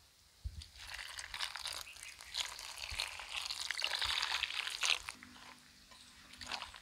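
Water poured from a steel lota into a steel bowl of dry ground spices, splashing onto the powder for about four and a half seconds. Then a hand mixes the wet spice paste in the bowl, much quieter.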